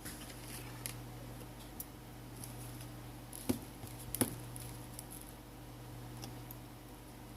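Small scattered clicks and taps of a precision screwdriver and tiny screws being undone from a smartphone's inner frame, with two louder clicks about three and a half and four seconds in. A low steady hum runs underneath.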